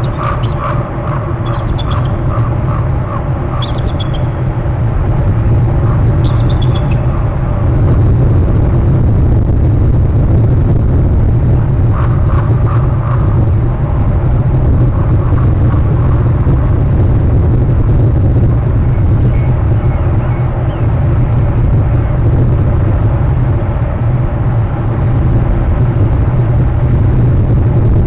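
Steady loud low rumble, growing a little louder several seconds in, with a faint steady hum running through it. Short bird calls come through in quick runs near the start and again around twelve seconds in.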